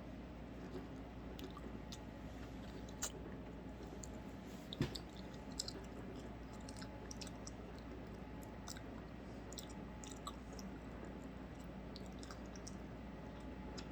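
A person chewing close to the microphone, a mouthful of cotton candy and Nature Valley granola bar: faint wet clicks and small crunches, with a sharper click about 3 seconds in and another about 5 seconds in.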